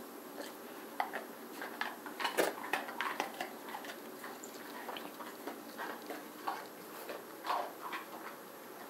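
Golden retriever moving about on a hard kitchen floor: scattered, irregular light clicks and taps.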